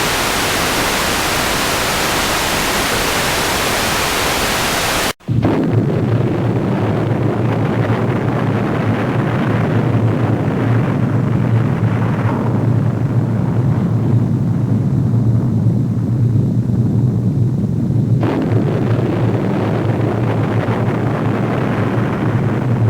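A steady hiss of static for about five seconds that cuts off abruptly. It is followed by a loud, continuous deep rumble, an explosion-type sound effect that goes on with little change.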